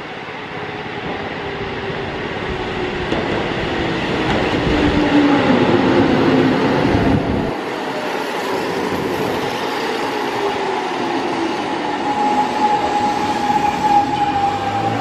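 Eizan Electric Railway 700-series electric railcar running past close by, its wheels and motor growing louder to a peak, with pitched whines sliding downward. After an abrupt change about halfway through, the railcar is heard slowing into a station, with a drawn-out whine near the end that falls slightly in pitch as it brakes.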